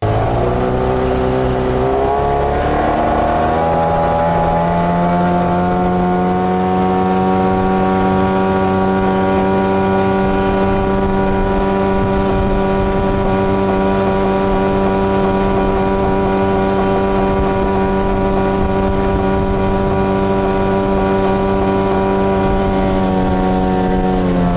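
Mikatsu 9.9 two-stroke outboard motor driving the boat, its pitch rising over the first few seconds as it speeds up, then holding a steady cruising note until it cuts off suddenly near the end.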